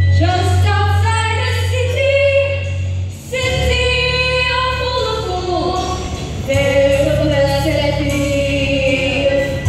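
A group of young voices singing a song from a school musical over a backing track with a steady bass line, the sung notes held long, with a brief break a little past three seconds.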